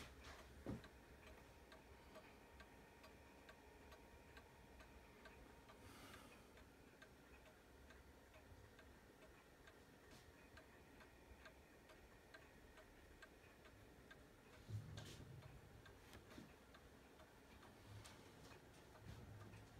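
Faint, steady ticking of a clock movement inside a castle-shaped clock, with a couple of soft knocks along the way.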